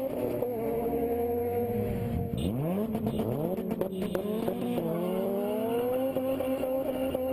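Honda K20 four-cylinder VTEC engine running at high revs, its note holding high with small rises and dips. About two seconds in, a second engine note sweeps sharply down in pitch before the high note carries on.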